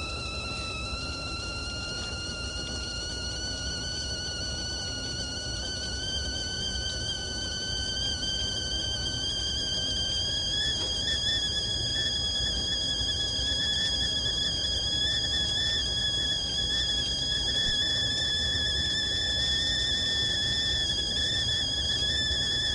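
Whistling teapot at the boil: one steady whistle with overtones that slowly rises in pitch and grows louder over the first ten seconds or so, over a low rushing noise.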